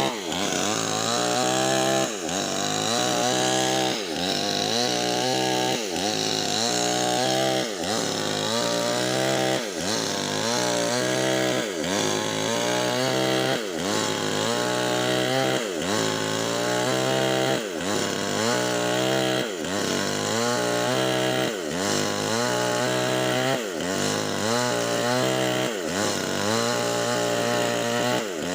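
Two-stroke chainsaw with a 25-inch bar ripping lengthwise through a Medang log, running hard under load. Its pitch sags and recovers again and again, about every two seconds.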